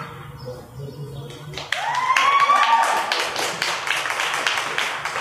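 Audience applause that breaks out suddenly under two seconds in, a dense patter of hand claps with a couple of rising whooping cheers at the start, and it carries on to the end.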